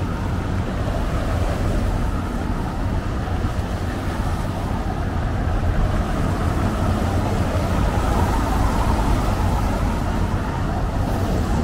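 Steady city traffic on a rain-wet road: car tyres hissing on wet asphalt over a low rumble.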